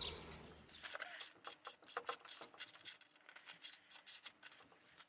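A freshly forged kitchen knife slicing through paper: an irregular run of quick, crisp little cutting and crackling sounds, starting about a second in.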